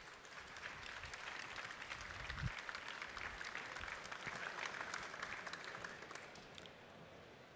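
Audience applauding, building up at the start and dying away near the end.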